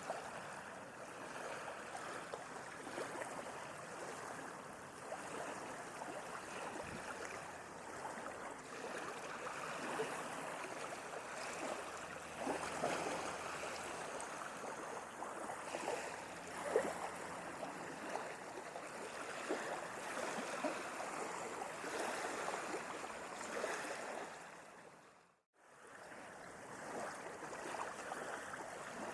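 Small sea waves lapping and splashing: a steady wash of water broken by little splashes. About 25 seconds in, the sound fades briefly to silence and then returns.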